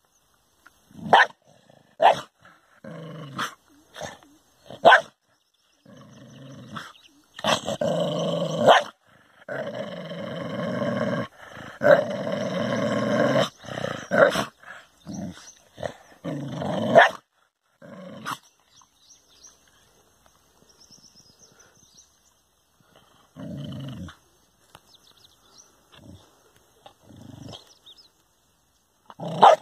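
A dog growling and barking aggressively at its own reflection in a mirror: a few sharp barks, then a long stretch of continuous snarling growl broken by barks, a quiet pause, and more barks near the end.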